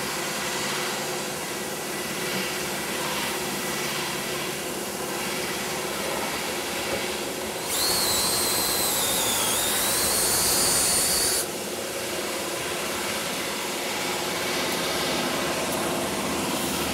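A DeWalt cordless drill with a step bit cuts into the stainless steel air cleaner bracket, giving a high, wavering squeal of bit on stainless that starts about eight seconds in, lasts some three and a half seconds and stops sharply. A steady shop hum runs under it throughout.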